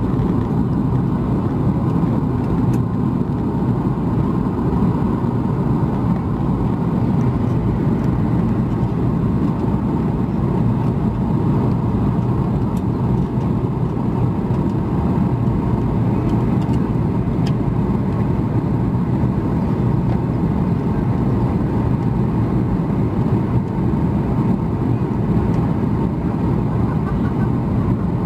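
Steady low rumble inside the cabin of a Boeing 737 MAX 8 from its CFM LEAP-1B engines and the airflow, heard from a window seat beside the wing. It stays even throughout, with a faint steady hum.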